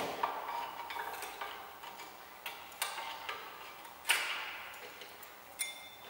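Scattered metallic clicks and taps of a flat screwdriver and steel brake pad against the front brake caliper bracket as the pad's retaining clip is pushed and the pad worked out. The sharpest click comes about four seconds in, and a short ringing clink near the end.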